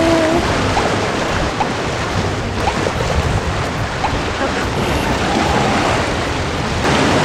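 Sea surf washing against the rocks, with wind buffeting the microphone: a steady rushing noise.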